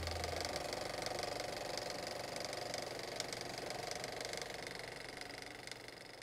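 Steady shimmering drone of a logo sound effect with several held tones, fading out toward the end; a low hum under it drops away about half a second in.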